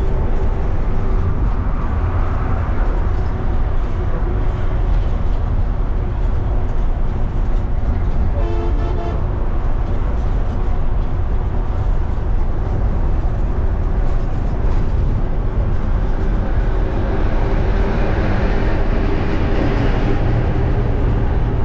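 Steady engine and road rumble of a non-AC coach bus running along a highway, heard from inside the bus. A short pitched tone sounds about nine seconds in, and a rushing noise swells near the end.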